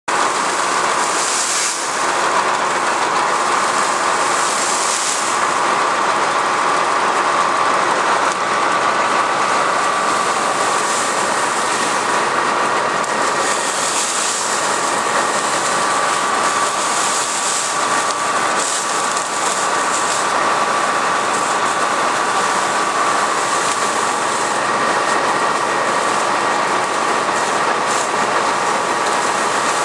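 Forage harvester running steadily at a loud, constant level, a steady whine sitting over its mechanical noise.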